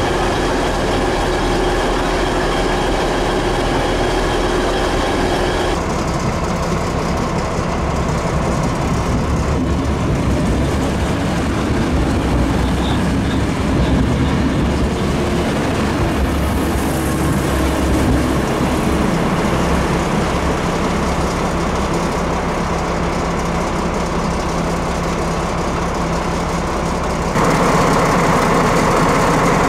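Train running slowly, with steady engine tones and some wheel noise; the sound changes abruptly twice, about six seconds in and near the end.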